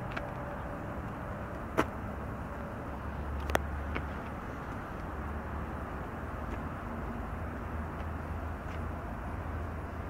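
Steady low mechanical rumble of a rail yard, with two sharp knocks, one about two seconds in and one about three and a half seconds in, and a few fainter ticks.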